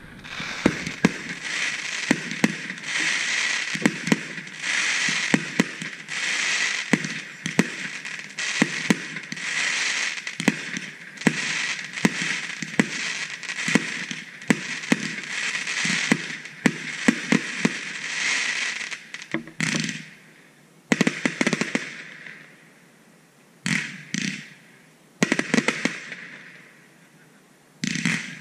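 Aerial fireworks display: a rapid run of shell bursts, about two bangs a second over a steady hiss, for most of the time. It then thins out to scattered bangs with quieter gaps in the last third.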